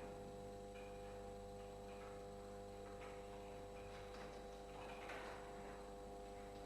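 Faint steady hum made of several held tones, with a few soft rustling noises over it.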